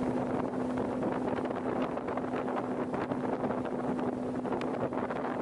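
Boat motor running at a steady pitch while the boat is underway, with wind rushing over the microphone.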